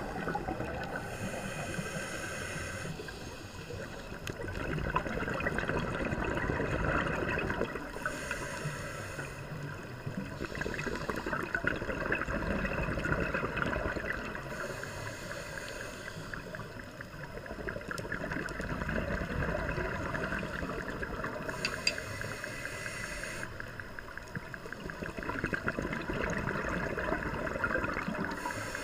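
Scuba diver breathing through a regulator underwater: a slow, repeating cycle of hissing inhales and gurgling bubble exhales, about one breath every six to seven seconds.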